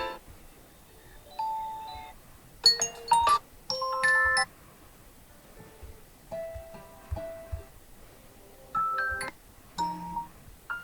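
OnePlus 10T phone alarm tones previewed one after another: about six short chiming, melodic snippets of different tones, each cut off after about a second or less with brief gaps between.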